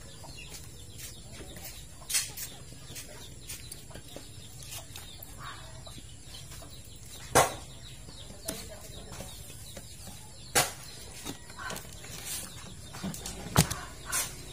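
Chickens clucking now and then, over a few sharp clicks and taps spaced several seconds apart.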